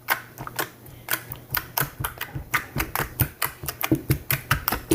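Very sticky homemade slime worked by hand, giving an irregular run of sharp clicks and pops, several a second, as it sticks and pulls away.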